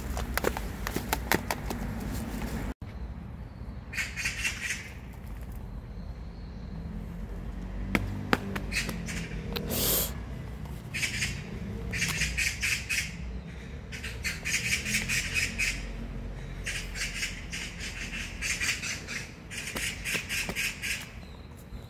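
A bird squawking in repeated harsh bursts, each about half a second to a second long, starting about four seconds in and coming thick and fast through the second half. Before that, dry fallen leaves rustle and crunch under a small dog's paws.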